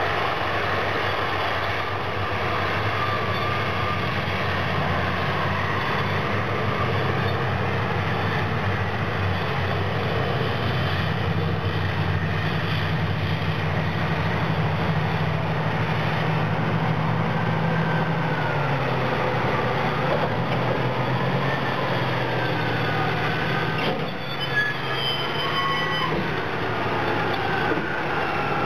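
Caterpillar 657E wheel-tractor scrapers' diesel engines running under load, the pitch climbing and holding, then dropping about eighteen seconds in. A few high metallic squeals sound near the end.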